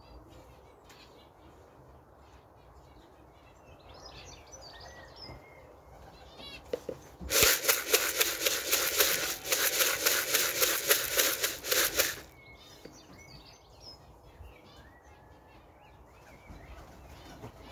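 Young Birmingham Roller pigeons taking off from the loft landing board: about seven seconds in, a loud, rapid clatter of wingbeats lasts about five seconds. Small birds chirp in the background before and after.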